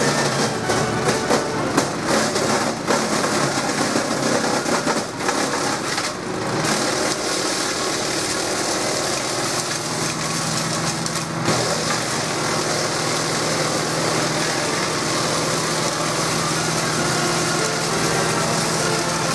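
FBC CIP 10 wood chipper with a 13 hp Honda petrol engine running while branches are fed in, with irregular sharp knocks from the wood being chipped over the first six seconds or so and once more about 11 seconds in. After that the engine runs on at a steady, even pitch.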